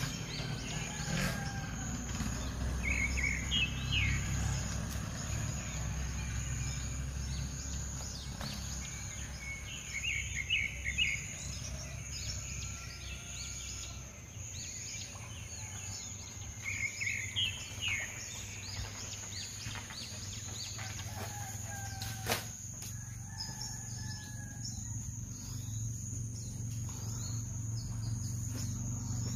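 Outdoor ambience: birds chirping in short bursts a few times, over a low steady rumble and a thin high steady tone, with one sharp click about 22 seconds in.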